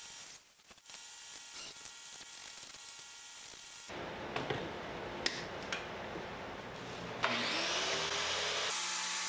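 Cordless drills drilling pilot holes and driving screws into wooden shelf brackets, heard in short clips cut one after another, with a few sharp clicks. The sound gets louder and fuller about seven seconds in.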